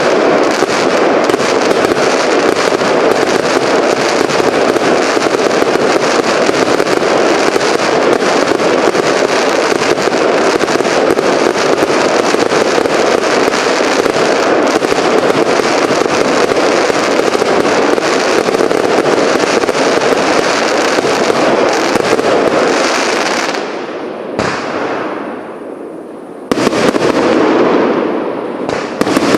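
Fireworks cakes firing a dense, continuous string of shots and star bursts with crackle. About 23 seconds in the firing dies down to fading crackle, then starts again sharply about three seconds later.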